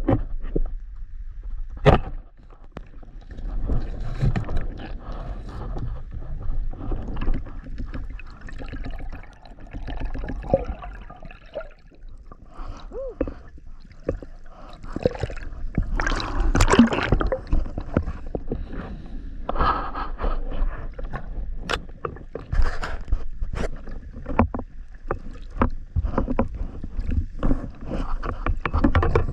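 Sea water sloshing and gurgling around the microphone, with irregular knocks and bumps throughout and a louder surge of water about halfway through.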